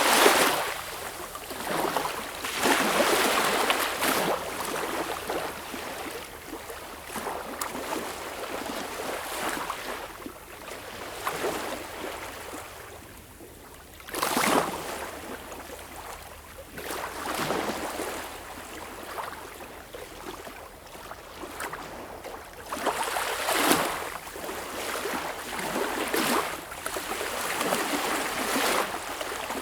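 Sea waves: rushing surges of water swell and fade every few seconds. The loudest comes at the very start, with further strong surges at about three seconds, fourteen seconds and twenty-four seconds in.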